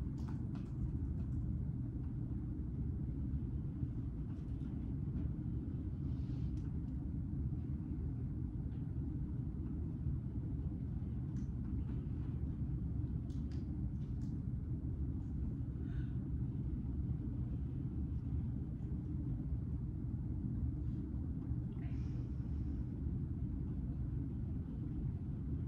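Steady low rumble of room background noise, with a few faint, scattered clicks and taps.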